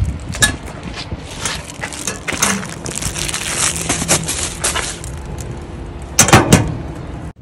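Parcels being handled and pushed into the metal compartments of an Amazon Hub parcel locker, a string of clicks, scrapes and rustles, then a locker door pushed shut with a loud clunk about six seconds in.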